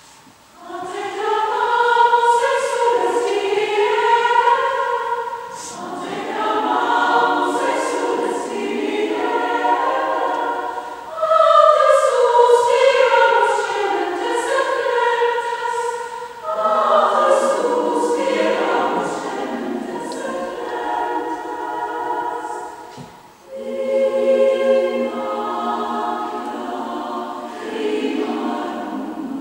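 A women's choir sings a sacred choral piece in long sustained phrases. The singing is broken by brief pauses about six seconds in, near the middle, and again about two-thirds of the way through.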